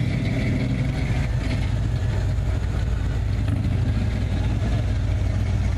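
Engine of a classic cruise car rolling slowly past, a steady low rumble.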